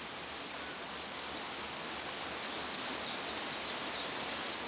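Outdoor garden ambience: a steady hiss with a run of high, quick chirps that begins about a second in and grows denser toward the end.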